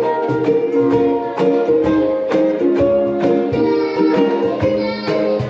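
Three ukuleles strumming chords together in a steady rhythm, an instrumental passage of a live song.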